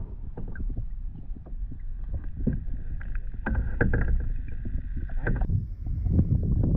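Water splashing and sloshing close to the camera at the side of a kayak, with irregular knocks and taps, as a caught fish is let go back into the river.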